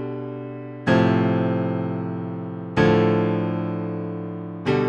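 Piano playing three-note left-hand chords: one chord is struck about every two seconds and left to ring and fade, three times.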